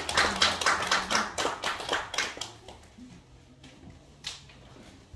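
Small audience applauding, the clapping thinning out and stopping about two and a half seconds in. A single sharp click follows about four seconds in.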